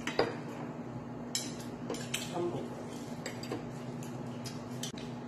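Metal tongs and kitchen scissors clinking and scraping against a shallow metal serving pan, a handful of separate clinks spread out, over a steady low background hum.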